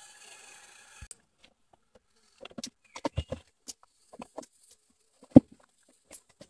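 Dry leaves and twigs crackling and snapping underfoot and against the body as a person moves through tangled dead branches, in irregular clusters, with one loud sharp snap a little past five seconds in. A faint steady hiss of forest background cuts off about a second in.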